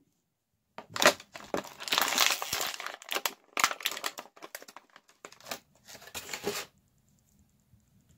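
Thin clear plastic packaging crinkling and crackling in several bursts as action figures are worked out of it, then stopping.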